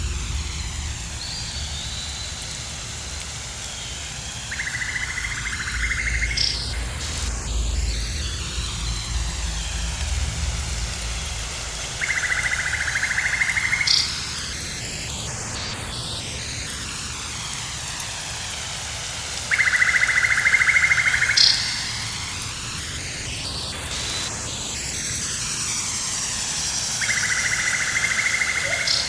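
Jungle ambience looped under a swirling 8D panning effect: a steady hiss of background noise with a high buzzing call of about two seconds that comes back four times, roughly every seven and a half seconds. A low rumble underneath dies away about halfway through.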